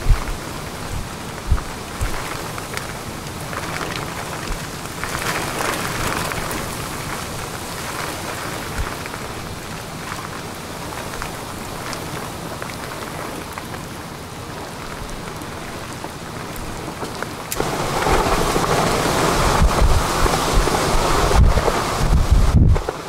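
Heavy rain and wind of a severe thunderstorm, surging in gusts, with low rumbling that grows much louder about three-quarters of the way through.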